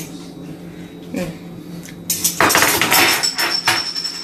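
Metal kitchen utensils and dishes clattering and scraping in a dense run of strokes, starting about two seconds in, as spaghetti is served from a wire sieve onto plates.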